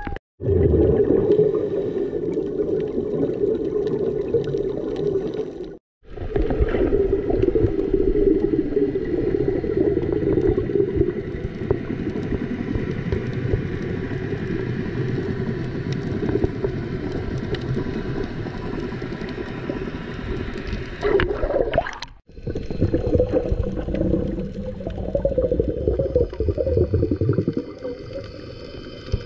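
Muffled underwater rumble and water noise picked up by a camera's microphone inside its waterproof housing while submerged, cutting off abruptly about 6 and 22 seconds in where the footage is cut.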